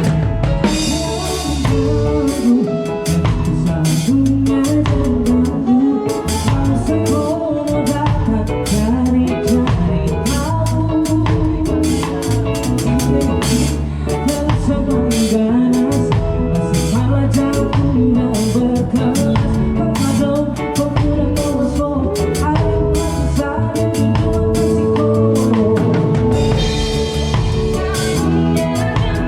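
Live band playing a song, with a drum kit beating throughout and a female vocalist singing.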